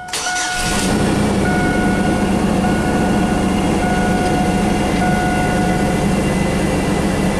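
2005 Chevy Blazer's 4.3 L Vortec V6 cranks briefly and catches within about half a second, then idles steadily: the first start after the fuel pump and fuel tank pressure sensor were replaced. A dashboard warning chime repeats on and off for the first six seconds or so.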